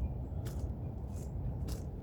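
Construction machinery rumbling steadily, with a few short scrapes and crunches on top, about half a second in and again near the end.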